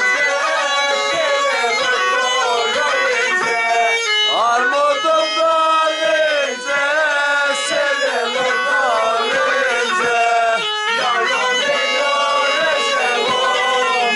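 Tulum, the Black Sea bagpipe, playing a continuous folk melody without pauses.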